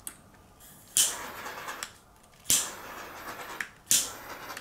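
Small handheld butane torch fired in three short hissing bursts about a second and a half apart, each starting suddenly and fading, as the flame is passed over wet UV resin to pop surface bubbles.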